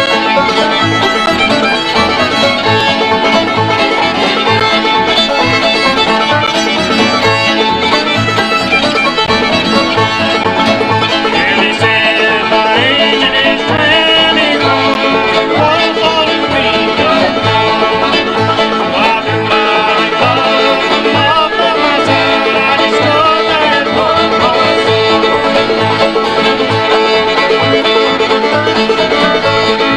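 Old-time string band jam tune: fiddle leading over banjo, strummed guitar and upright bass keeping a steady beat.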